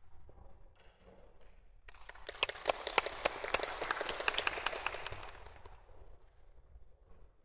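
Audience applauding: the clapping starts abruptly about two seconds in and fades out a few seconds later.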